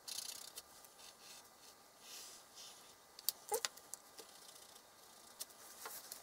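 Quiet scratching of a pencil and a rubber eraser on paper, in short strokes, with a few light clicks from handling the small instrument parts.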